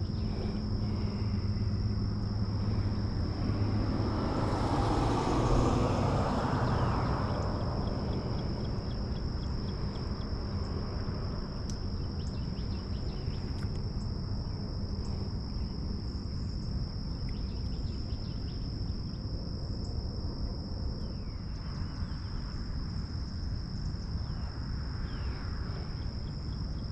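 Steady high-pitched insect chirring outdoors over low background noise, with a broad swell of noise about four to seven seconds in.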